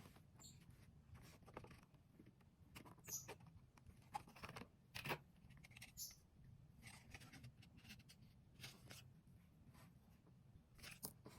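Faint, irregular taps and rustles of fingers dabbing on a finger paint pad and pressing prints onto paper, with soft clicks scattered through at uneven intervals.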